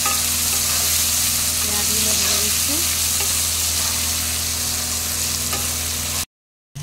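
Chopped onions sizzling steadily as they fry in oil in a non-stick kadai, with a wooden spatula stirring them and now and then tapping and scraping the pan, over a steady low hum. The sound cuts off suddenly near the end.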